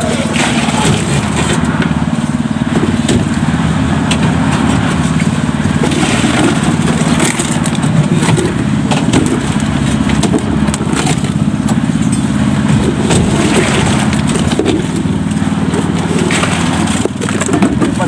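Concrete mixer's small engine running steadily through a concrete pour, with scattered clanks and scrapes of metal pails of concrete being handled and emptied.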